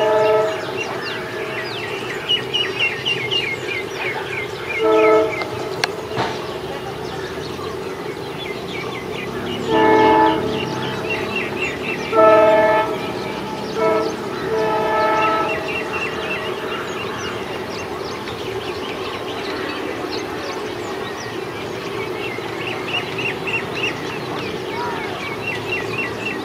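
Multi-tone horn of a WDP 4D diesel locomotive sounding about six short blasts in the first sixteen seconds, over a steady hum. Birds chirp throughout.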